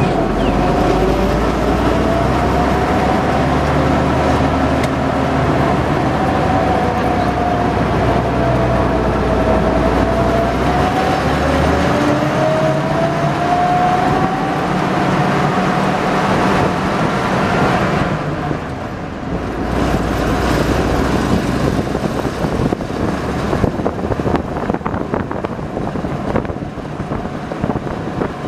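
The engine and drivetrain of a WWII-era DUKW amphibious truck (a "duck") running on a paved road, over tyre and road noise. A whine wavers up and down in pitch as the vehicle changes speed. Around two-thirds of the way through, the low rumble drops away and the sound turns rougher and more uneven.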